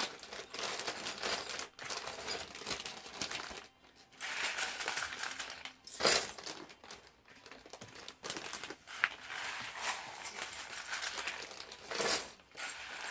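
Plastic bags crinkling and rustling in stop-start handling, with a few sharp clicks.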